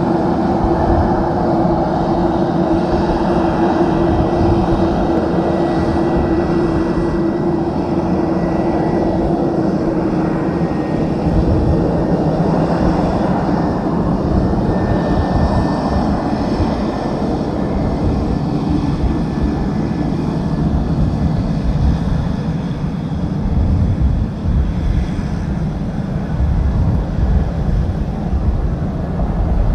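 A Beechcraft King Air 350ER's twin Pratt & Whitney PT6A-60A turboprops running as the aircraft moves along the runway. A steady propeller tone weakens after about ten seconds as the aircraft turns away.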